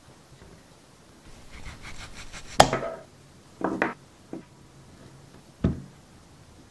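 Knife cutting through a modelling-clay tomato: a quick run of scraping strokes, then a sharp chop about two and a half seconds in, followed by a few lighter knocks of the blade on the surface.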